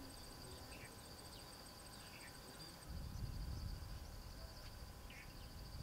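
Insects trilling steadily at a high pitch, with a few faint short chirps over it. A low rumble comes in about three seconds in.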